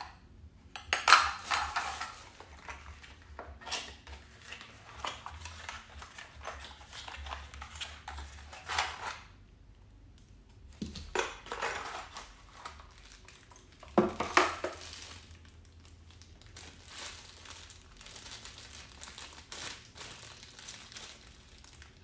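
Small metal parts and hardware of a keypad deadbolt lock clinking and knocking as they are unpacked and handled, mixed with handling of cardboard and plastic packaging. The sharpest knocks come about a second in and again around fourteen seconds in.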